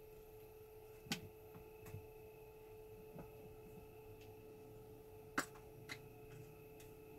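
A faint steady hum with a few short, sharp clicks or taps. The loudest come about a second in and just past five seconds.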